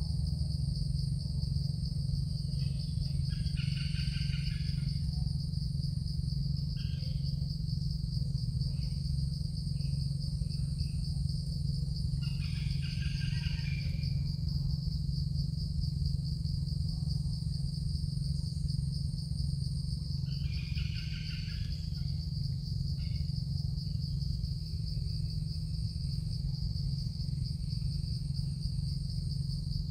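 Evening forest insect chorus: a steady, high, continuous buzzing. Short chirping calls break in several times, over a steady low hum.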